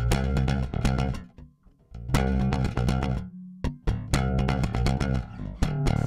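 Background rock music led by bass and guitar, with a brief break about a second and a half in.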